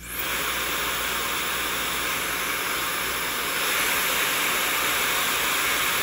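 Laifen Swift high-speed hair dryer running, a steady rush of air, switched to its second air speed about three and a half seconds in, where it gets a little louder.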